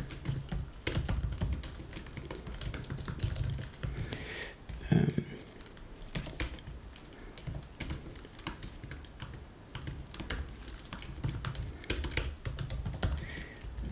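Typing on a computer keyboard: irregular runs of keystroke clicks, with one short, louder low sound about five seconds in.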